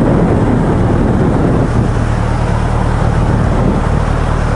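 Motorcycle engine running steadily at an even, low pitch, with some noise over it.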